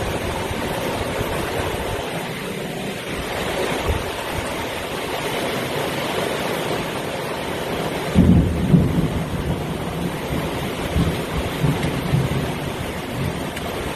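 Heavy rain pouring steadily in a thunderstorm. About eight seconds in, a loud burst of thunder starts and rolls on for several seconds.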